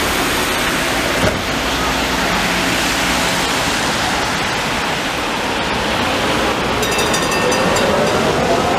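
Budapest UV tram pulling away: a steady rushing rumble of wheels and running gear, with a rising motor whine starting near the end as it picks up speed.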